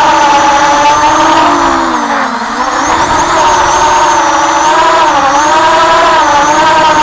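FPV racing quadcopter's brushless motors and propellers whining loudly, the pitch rising and falling with the throttle; about two seconds in the throttle drops briefly and the whine sinks in pitch and level before climbing back.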